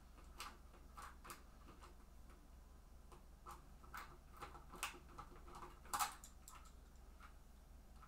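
Faint, scattered small clicks and taps of a screwdriver working the ground-wire screw on the back of an Amiga 2000 keyboard's circuit board. The loudest click comes about six seconds in.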